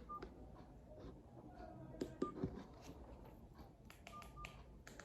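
Faint scattered clicks and several very short electronic beeps at one high pitch, about four of them spread through the stretch, with the last two close together near the end.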